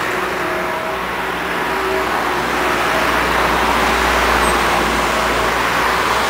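Street traffic: a car passes close by, its engine and tyre noise swelling to a peak about four seconds in and then easing as it moves off.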